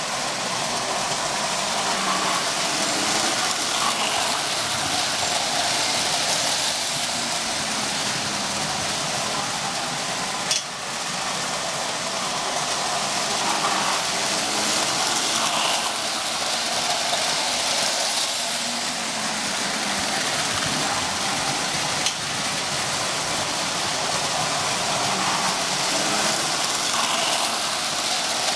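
Toy trains, a Lionel Illinois Central GP-9 diesel and a Marx 666 steam locomotive pulling postwar Lehigh Valley hoppers, running on tinplate three-rail O-gauge track: a steady rumble and clatter of wheels and motors that swells and fades as the trains come round. Two sharp clicks stand out, one near the middle and one about two-thirds of the way in.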